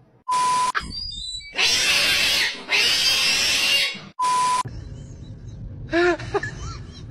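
Cat hissing in two long, loud hisses, between short electronic beeps about half a second in and about four seconds in. Near the end come a few short pitched calls that rise and fall.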